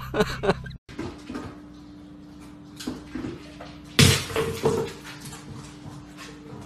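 A dog tipping a plastic slow-feeder bowl on a tile floor: a loud clatter about four seconds in, followed by a few smaller knocks as the bowl and dry kibble hit the tiles, with quieter clicks before and after.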